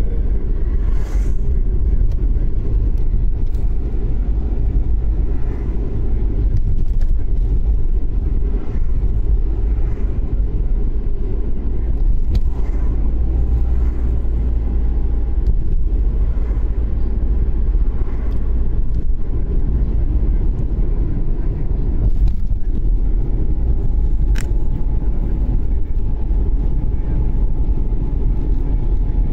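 Taxi driving along a road, heard from inside the cabin: a steady low rumble of engine and tyres on the road surface.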